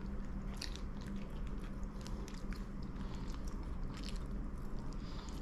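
A person chewing food close to the microphone, with a few sharp crunches over a steady low background hum.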